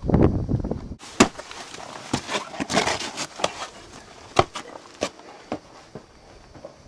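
Low rumble on the microphone for about a second, then an abrupt break, followed by irregular scuffs, clicks and knocks of feet and hands on granite boulders as someone clambers over the rocks, with the camera being handled.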